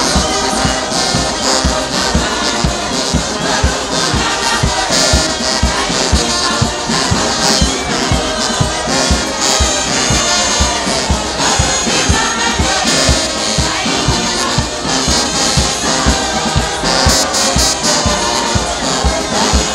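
Brass band music with trumpets and trombones over a steady drum beat, with a large crowd's voices mixed in.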